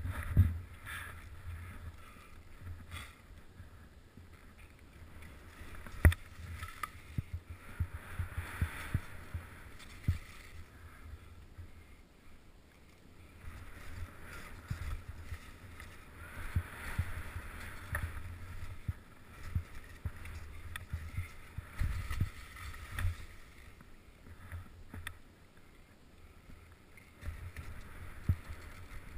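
Skis sliding through snow, a hiss that swells and fades from turn to turn, over a low rumble with sharp knocks on the action camera as it rides over the snow.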